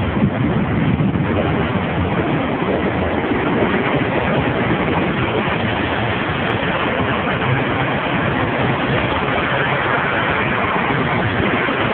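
Steady, unbroken noise of a busy city street with passing traffic.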